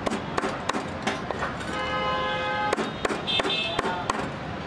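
A cleaver chopping down onto a plastic cutting board in a quick, uneven series of sharp knocks. About two seconds in, a held pitched tone sounds for about a second over a busy background.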